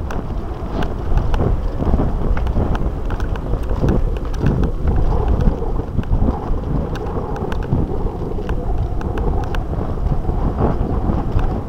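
Wind rushing over the microphone of a camera carried on a moving mountain bike, a steady low rumble, with frequent small knocks and rattles as the bike jolts over a rough dirt track.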